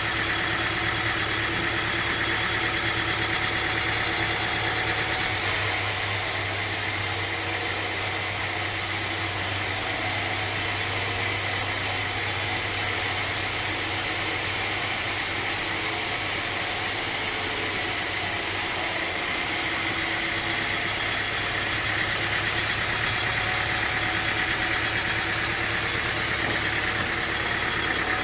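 Sawmill machinery running steadily: a constant engine-like hum with a bright hiss on top, changing character about five seconds in and again near nineteen seconds.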